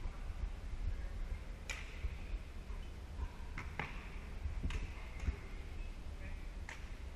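A badminton rally: rackets hitting a shuttlecock with five or six sharp cracks at irregular intervals of one to two seconds, over a low steady rumble.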